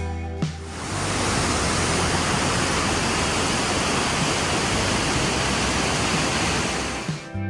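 Steady rushing noise of a waterfall pouring down. Background music fades out about half a second in and comes back near the end.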